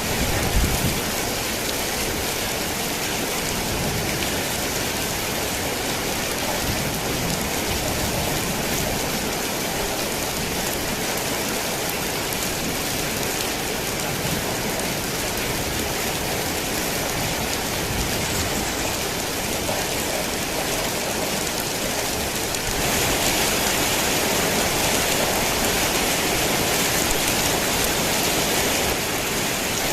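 Heavy rain drumming steadily on a tin roof, with a brief low rumble of thunder at the very start. The rain grows louder and hissier about three quarters of the way through, then eases back near the end.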